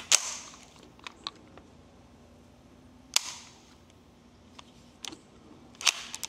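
Unsuppressed Ruger 10/22 takedown firing CCI Suppressor .22 LR subsonic rounds: three sharp rimfire shots about three seconds apart, each with a short echo, and a few faint clicks between them.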